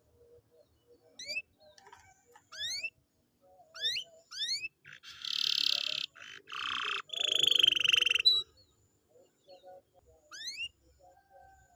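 Domestic canary singing: a few short, quick rising whistled notes, then from about five seconds in a run of fast buzzy trills lasting about three seconds, then more rising notes near the end.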